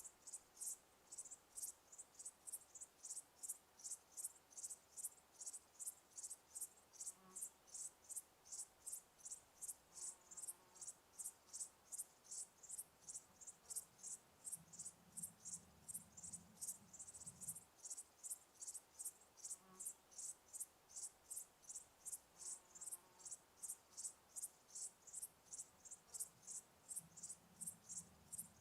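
A cricket chirping steadily in an even rhythm, about two high chirps a second.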